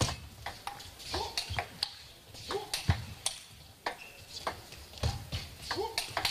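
Table tennis rally: the ball clicking sharply off the bats and the table in a quick, irregular back-and-forth, about two or three hits a second, with a few short squeaks mixed in.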